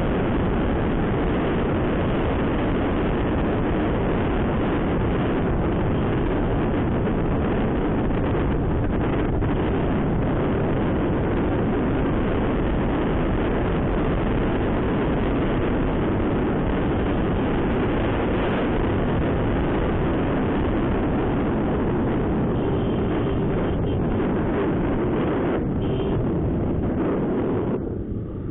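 Heavy wind rush and road noise on the microphone of a Honda SP125 motorcycle riding at speed, with the bike's running engine underneath. It eases slightly near the end as the bike slows.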